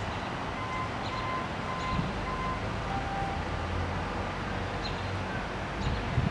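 Distant light rail vehicle approaching a junction crossing, a low rumble that swells mid-way over steady outdoor background noise. A faint ringing tone repeats about twice a second for the first two and a half seconds.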